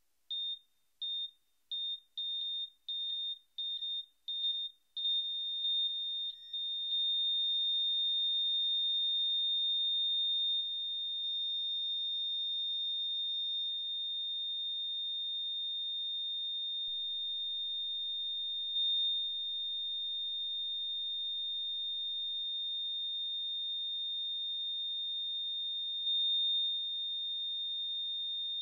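A single high-pitched electronic tone: about seven beeps, each a little longer with shorter gaps between them, run together into one unbroken steady tone after about five seconds.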